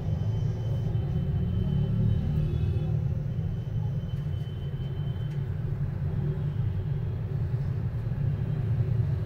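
A steady low rumble, with a few faint thin tones above it.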